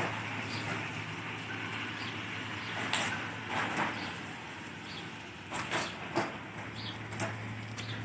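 A cardboard pizza box scraping and rustling across wet stone tiles in several brief bursts as a gull pulls at it, over a steady hum of traffic.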